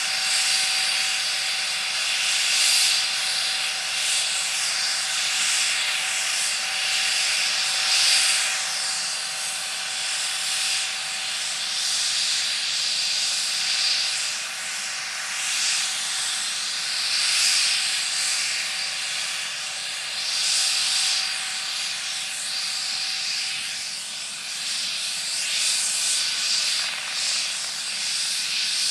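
MD Helicopters MD 902 Explorer's twin turboshaft engines running on the ground during start-up, rotor turning: a steady turbine whine over a loud hiss that swells and eases every two to three seconds.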